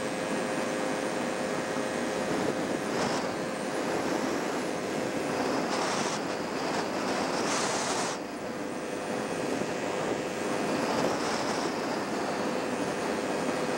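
Steady road and wind noise from a moving vehicle, with a constant hum underneath. Hissier swells of wind noise come about three seconds in and again from about six to eight seconds, the second ending abruptly.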